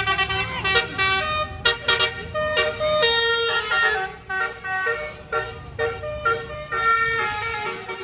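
A Basuri multi-tone "telolet" bus horn playing a fast melody of short stepped notes, with one longer held note near the middle. A bus engine rumbles low underneath.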